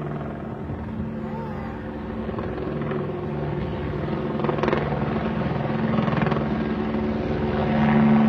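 Several helicopters flying close together, their engines and rotor chop steady and growing louder as they approach, loudest near the end.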